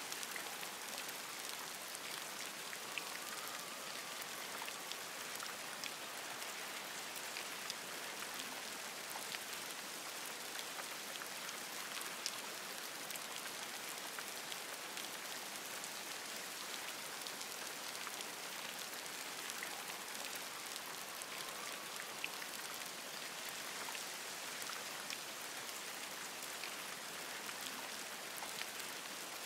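Steady rain falling on forest leaves: a dense, even hiss with many single drops ticking through it.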